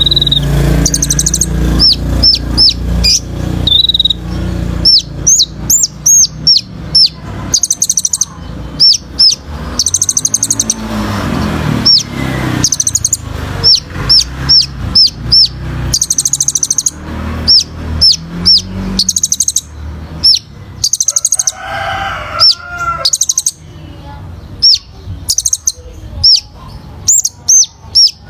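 Kolibri ninja (a sunbird) singing loudly and continuously: rapid runs of sharp, high chirps that each sweep downward, mixed with buzzy trilled bursts. A low rumble sits under the first half of the song.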